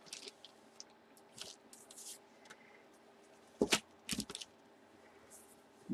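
Soft handling noise of a hockey jersey being unfolded from its packaging, with faint rustling and a few short, louder crinkles about three and a half to four and a half seconds in.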